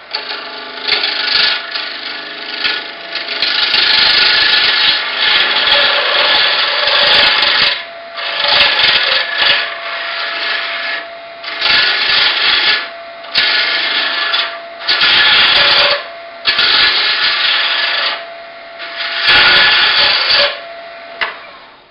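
Carbide lathe tool scraping a deer antler spinning at high speed on a lathe, in about nine passes of one to three seconds with short breaks between, over the lathe's steady hum.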